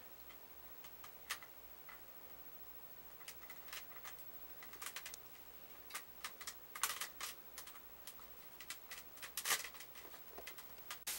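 Irregular light clicks and taps of construction-toy pieces being handled and pushed together, coming in small clusters, with the loudest snap near the end.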